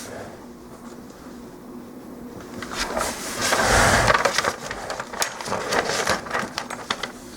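Small plastic model-kit parts being handled: a stretch of rustling and fumbling with a soft thump about four seconds in, then a run of small sharp clicks as plastic pieces are fitted together.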